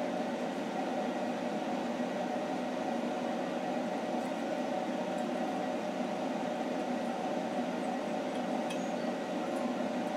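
Steady electrical hum of a stick welder switched on and idling, with no arc struck yet, and a few faint ticks.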